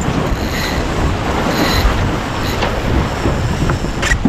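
Steady rush of wind buffeting the microphone and water rushing along the hull of a Farr 280 sportsboat under sail, with a sharp knock near the end.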